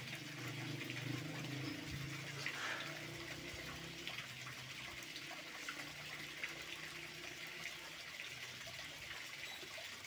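Sand-filtered river water spraying from a float-valve inlet into a plastic storage tank: a steady splashing hiss.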